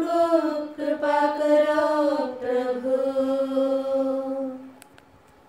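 A voice chanting the closing line of a sung Odia Christian litany on long held notes that slowly fall in pitch. The last note fades out about four and a half seconds in.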